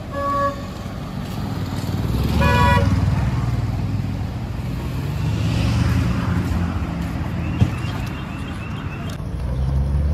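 Road traffic with car engines running low and swelling as vehicles pass. A short car horn honk comes right at the start, and a second, stuttering horn blast follows about two and a half seconds in.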